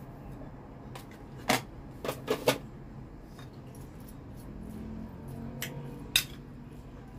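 Metal spoon clinking against a porcelain bowl while stirring raw chicken pieces with salt: a quick run of four sharp clinks about a second and a half in, then one more near the end.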